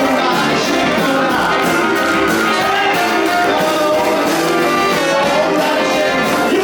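Band playing 1950s-style music, with a brass section carrying sustained, held notes.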